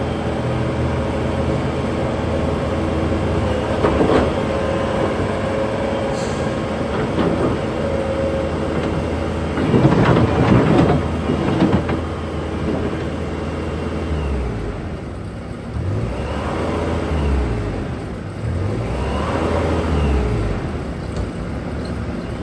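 Bobcat T-740 tracked skid steer working: its diesel engine running steadily, with a loud stretch of clanking and scraping about ten seconds in. Later the engine note drops and comes back several times as the load changes.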